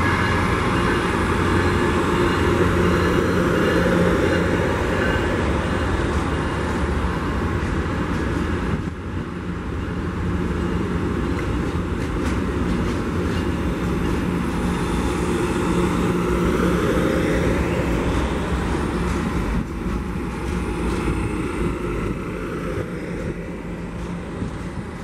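A train passing: a loud, steady running noise with a low drone, easing off a little near the end.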